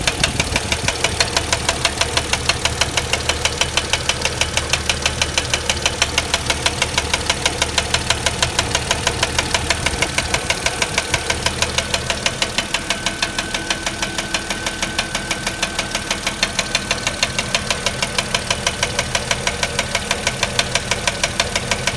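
Mercedes-Benz M112 V6 engine of a W210 running with a steady, rapid, regular knock, the knock of a used contract engine.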